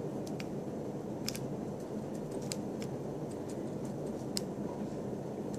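Sparse, irregular light clicks and ticks from tweezers probing a glowing vape coil on a rebuildable Genesis atomizer while the mod is pulsed, over a steady low hum.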